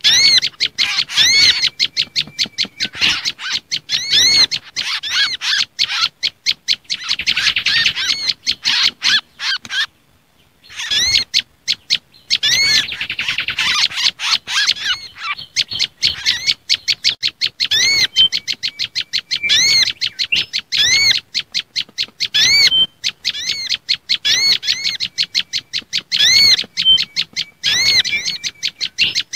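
Bird-lure recording of agitated small-songbird calls, prenjak lumut mixed with mangrove whistler and olive-backed sunbird: a rapid, continuous run of high, arched chirps that breaks off for about a second roughly ten seconds in, then resumes.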